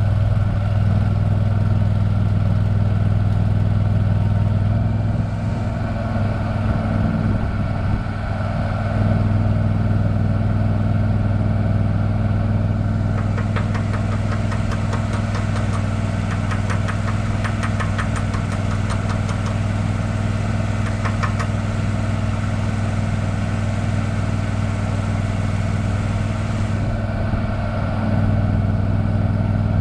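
Engine running steadily at an even speed. For several seconds in the middle a fast rattling tick rides over it.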